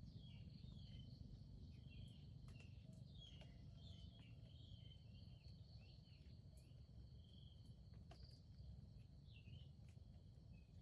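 Near silence: faint outdoor ambience with a steady high insect drone and scattered small bird chirps over a low background rumble.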